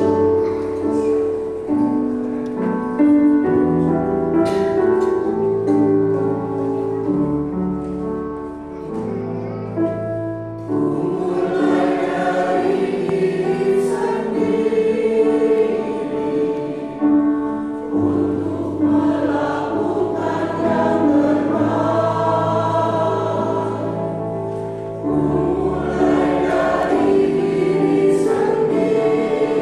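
Keyboard playing a slow introduction of held chords, then, about ten seconds in, an elderly mixed choir begins singing a hymn in unison with the keyboard accompanying.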